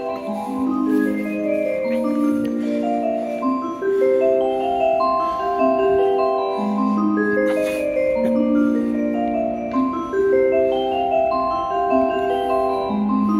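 Station train-approach melody: a repeating tune in chime-like mallet tones, played over the platform loudspeakers to signal that a train is pulling in.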